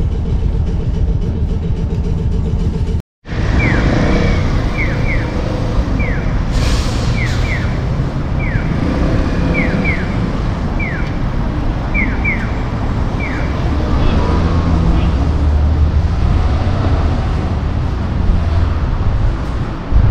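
Low rumble of a moving train carriage, then after a short break, city traffic at an intersection with a Japanese pedestrian crossing signal chirping. The chirps are short falling cheeps, single ones alternating with pairs about once a second, and they stop after about ten seconds, the sign that the crossing is open to pedestrians.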